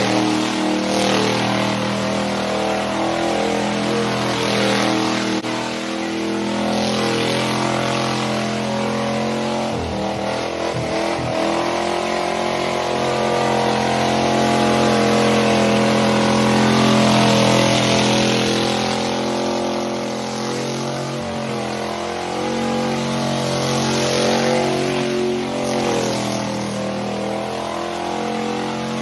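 Pickup truck's engine held at high revs through a long burnout, its rear tyres spinning on the pavement. The revs dip and waver briefly about ten seconds in and again a little past twenty seconds, then pick back up.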